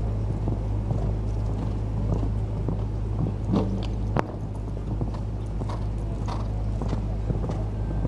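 Hoofbeats of a show-jumping horse on sand arena footing as it approaches, jumps and canters away, with a single sharp knock about four seconds in as it lands over the fence. A steady low hum runs beneath.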